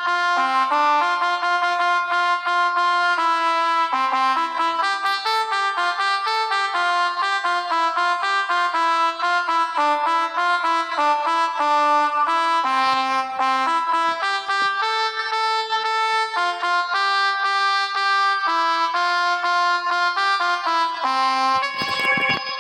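Pianika (melodica) sound from a phone app playing a continuous run of reedy, horn-like notes, often two or three together, practising the Indonesian 'telolet' bus-horn tune.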